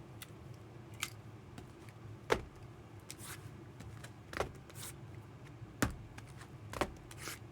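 A sealed trading card box being opened by hand: scattered sharp clicks and taps with brief crinkling of the wrapper.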